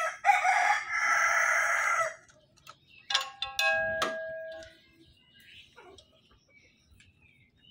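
A rooster crows once, loud and about two seconds long. About three seconds in come a couple of sharp clinks, each followed by a ringing tone that fades over a second or so.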